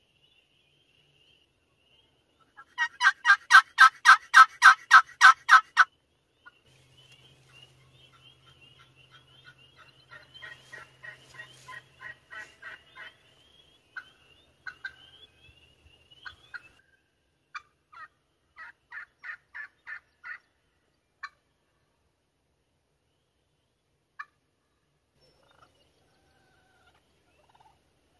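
Turkey yelping: a loud run of about a dozen evenly spaced notes, about four a second, then quieter runs of similar notes and a few single notes further off.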